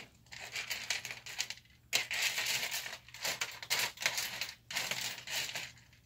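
Hands rummaging through loose LEGO pieces, with irregular rustling and clicking of small plastic parts while searching for one piece.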